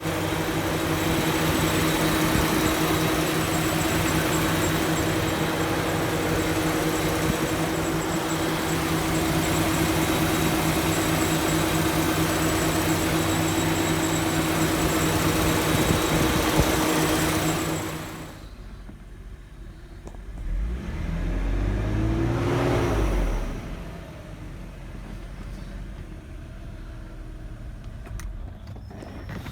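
Mercedes-Benz W124 engine running with a steady hum and a loud hissing noise, the weird engine noise in question. About 18 seconds in the loud noise drops away suddenly; a few seconds later a short low surge rises and falls in pitch, then it settles to a quieter running sound.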